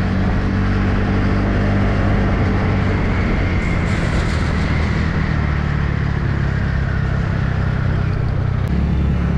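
Motor scooter's small engine running steadily under way, with a constant rush of wind and road noise.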